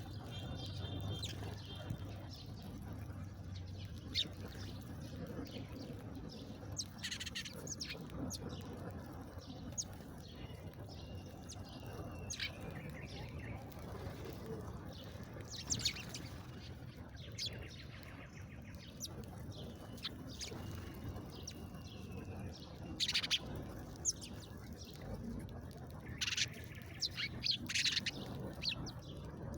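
Small birds chirping in short, scattered calls, a few of them louder and bunched together, over a steady low hum.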